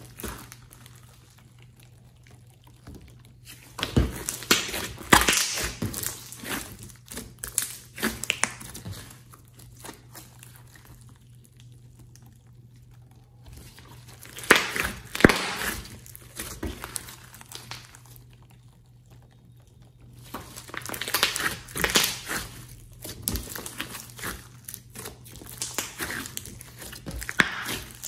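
A large lump of sticky slime being pressed, squeezed and folded by hand, giving bursts of rapid wet crackling clicks with quieter pauses between handfuls.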